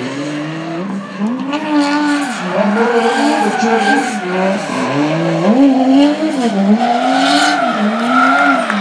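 Drift car engine revving up and down over and over as the car slides, with tyre screech throughout.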